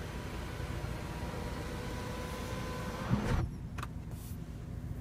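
BMW X1 power panoramic sunroof's electric motor whining steadily as the glass panel slides. It stops with a thunk about three seconds in.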